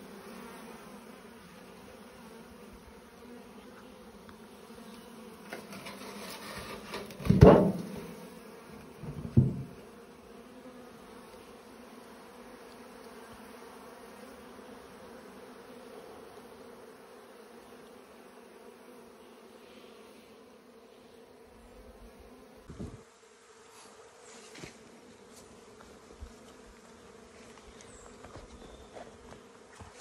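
Honeybees buzzing in a steady hum around an open hive, with two loud knocks about seven and nine seconds in. The hum thins out after about twenty seconds.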